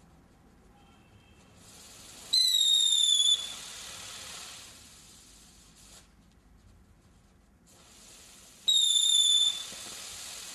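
Catherine wheel firework spinning with a hissing burn, giving two loud shrill whistles about six seconds apart. Each whistle lasts about a second and falls slightly in pitch, then the hiss carries on and fades.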